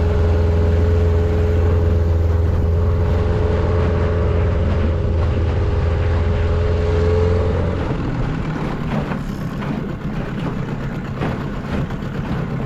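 Small outboard motor on an aluminium tinny running at a steady speed with a constant hum, which stops about eight seconds in. After that a rougher noise with a few clicks remains.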